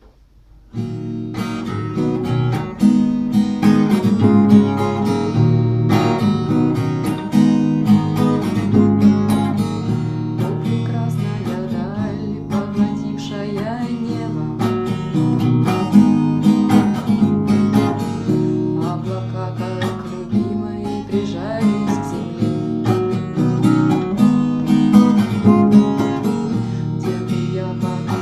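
Rock song with strummed guitar, starting about a second in after a brief silence.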